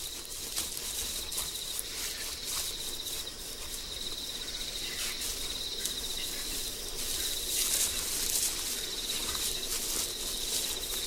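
Insects chirring in a steady, finely pulsed high trill, with scattered soft clicks over it.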